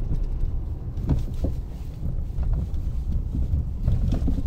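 Low, steady rumble of a car driving slowly, heard from inside the cabin: engine and road noise, with a few faint light knocks.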